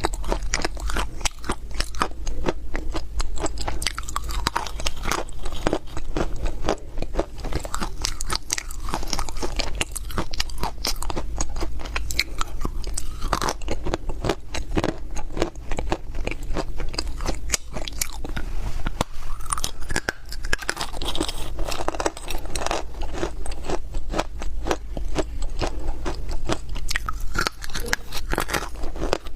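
Close-miked biting and chewing of dry crunchy clay (loess chunks): a dense, continuous stream of crisp crunches and crackles.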